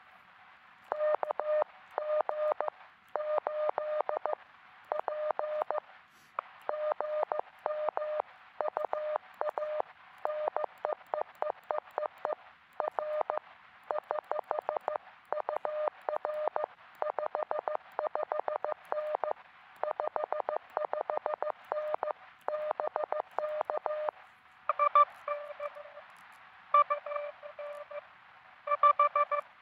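Morse code (CW) tones from a QRP transceiver. For the first 23 seconds or so, a steady-pitched tone keys rapid dits and dahs over a band of receiver hiss. From about 25 seconds in, a second, slightly lower and louder tone keys in longer groups.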